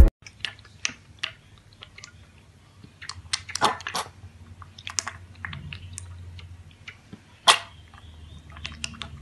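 Piglet drinking milk from a steel bowl: irregular wet smacking and slurping from its mouth, with one louder smack about seven and a half seconds in.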